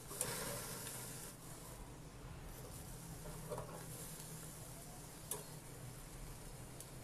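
Masala-coated chicken legs sizzling faintly on a wire grill rack over a gas stove flame. A scrape and clatter of the metal fork on the rack as the pieces are turned just after the start, and a couple of light clicks later.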